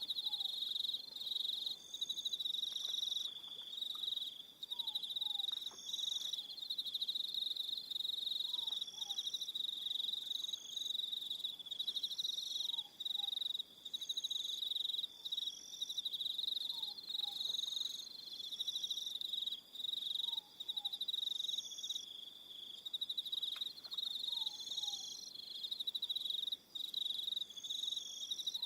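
Evening chorus of crickets: a steady, high, continuous trill, layered with other insects' higher notes that switch on and off every second or two. A faint two-note falling call repeats about every four seconds underneath.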